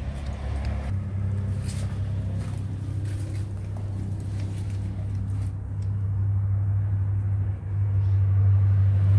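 Steady low motor rumble, stepping louder about a second in and again near the end, with a few faint clicks above it.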